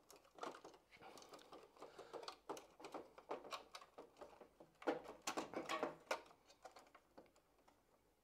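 Faint, irregular small clicks and taps of plastic wiring connectors being worked loose from a tumble dryer's circuit board, a screwdriver pressing the release lugs. They die away near the end.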